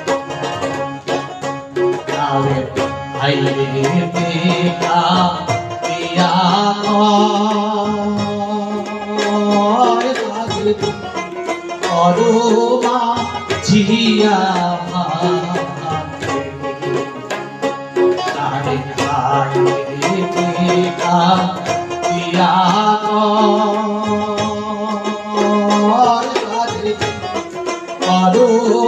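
Bengali folk song performed live: a man singing in long wavering phrases, accompanied by tabla, harmonium and a plucked dotara.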